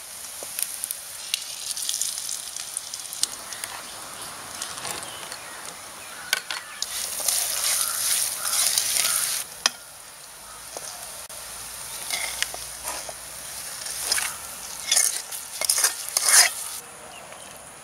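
Tempering of dry red chillies and curry leaves sizzling in hot oil in a steel pan, scraped and stirred with a wooden spatula. Louder bursts of sizzling come around the middle and again near the end, as the hot tempering is tipped into the curry.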